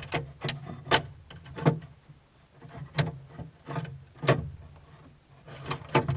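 A series of sharp clicks and knocks, roughly one every half second to second, over an intermittent low hum, typical of hand-tool and hardware handling.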